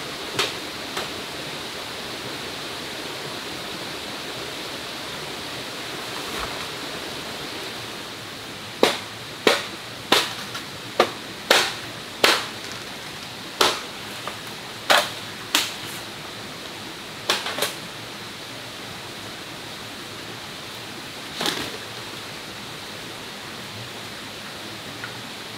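A steady hiss of forest background, with about a dozen sharp knocks at irregular intervals of under a second, starting about a third of the way in and stopping after about ten seconds, then one more knock later.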